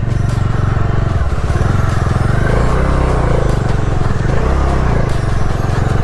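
Bajaj Dominar 400's single-cylinder engine running steadily as the motorcycle is ridden.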